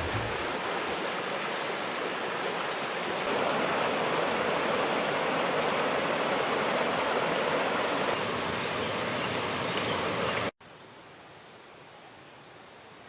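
Steady rush of flowing stream water. About ten seconds in it cuts off abruptly, leaving a much quieter hiss.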